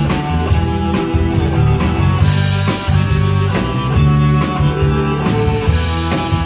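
Live rock band playing an instrumental passage: electric guitar, bass guitar and keyboard over a steady drum-kit beat.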